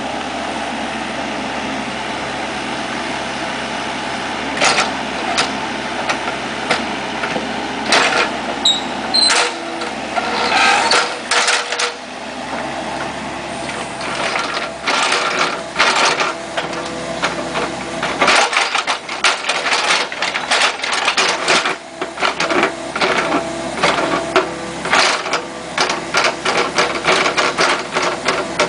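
Kubota KX71-3 mini excavator's diesel engine running steadily while its steel bucket digs in a rocky trench. Frequent sharp clanks and scrapes of the bucket against stone and soil, growing busier in the second half.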